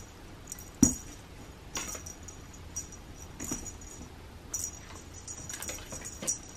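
Cats batting and pouncing at a feather wand toy on a carpeted scratching ramp: a string of irregular soft knocks and scuffs, several with a light metallic jingle, the loudest about a second in.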